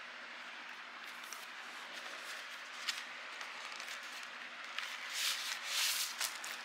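Cardboard vinyl LP sleeve being handled: one sharp click about three seconds in, then about a second and a half of rustling and scraping near the end as the sleeve is moved over the desk, above a steady background hiss.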